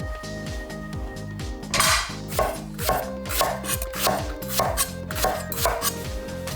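Background music with a steady beat, and from about two seconds in a run of about nine sharp knocks, roughly two a second: a kitchen knife chopping on a cutting board.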